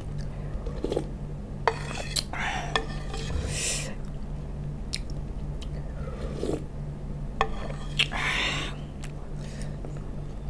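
Slurping thin broth from a wooden spoon: a few short, noisy slurps seconds apart, with light clicks of the wooden spoon on the pan. A steady low hum runs underneath.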